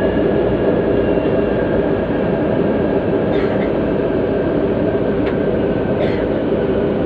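Steady running noise inside a Manila MRT light-rail train car in motion.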